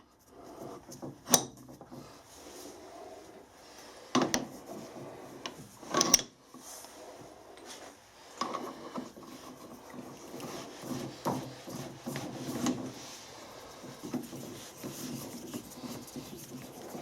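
Hand handling of a cast iron brake drum and lathe fittings during setup: three sharp metal knocks, about a second in and again around four and six seconds, with irregular scraping and rubbing between them. The lathe is not running.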